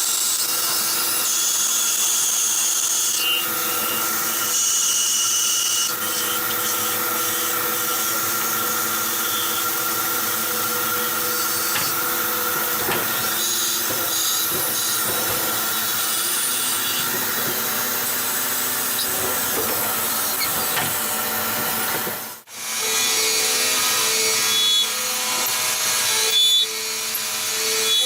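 CNC lathe running and turning a workpiece: a steady machine hum made of several held tones, with the scraping hiss of the cut over it. The sound cuts out for an instant about three-quarters of the way through, then resumes.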